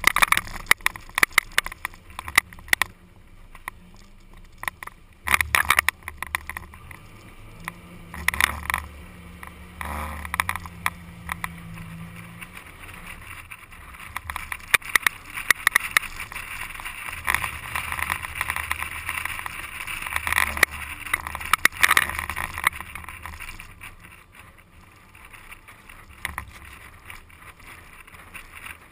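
An SUV driving over desert sand, heard from a camera mounted on the outside of the vehicle. Wind rumbles and buffets irregularly on the microphone over the vehicle's running noise, with scattered knocks and crackles.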